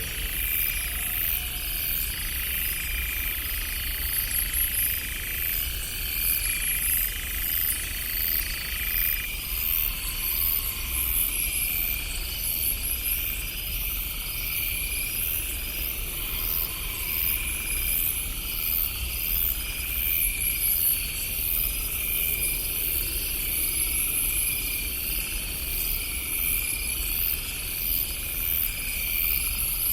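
Night insects, crickets among them, chirping in steady repeating pulses over a constant low rumble.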